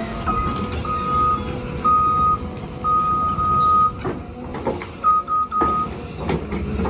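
Heavy machine's reversing alarm beeping at one steady pitch, about once a second, then three short quick beeps, over a diesel engine running and some knocks.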